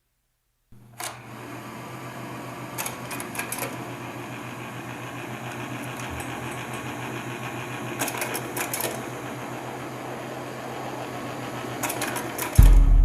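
Steady machine-like running hum with a fast, even pulse, broken by short clusters of clicks a few times. It starts about a second in. Near the end, a loud strummed acoustic guitar comes in.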